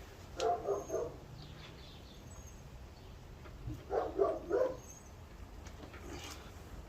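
A dog barking in two short bursts of several quick barks, about half a second in and again around four seconds in.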